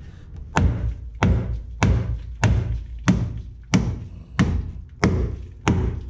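Hammer blows on the car's sheet-steel body beside the transmission tunnel, a steady run of about nine strikes, a little under two a second, each with a short metallic ring. The panel is being bashed in to make clearance for the engine's exhaust headers.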